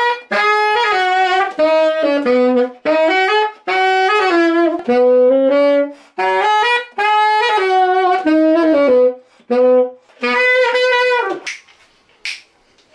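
Saxophone playing a bouncy melodic line in short phrases of stepping notes, with brief breaks between phrases. The playing stops shortly before the end, and a couple of sharp clicks follow.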